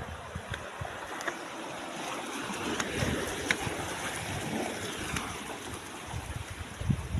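Steady rushing water, with scattered faint clicks and a few low rumbles.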